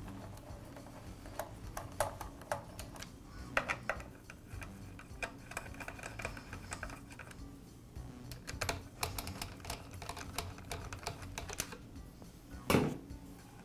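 Screwdriver clicking and scraping as screws are backed out of a Makita cut-off saw's plastic recoil starter housing, with a louder knock near the end, over soft background music.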